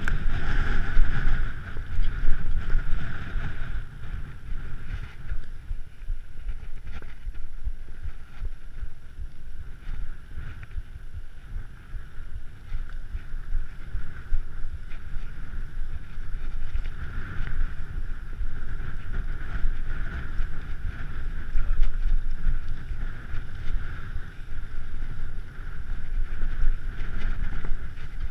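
Mountain bike rolling over a rough, rocky track, heard through a handlebar-mounted camera: a steady rumble of tyres and frame, jolted by the bumps, with wind on the microphone.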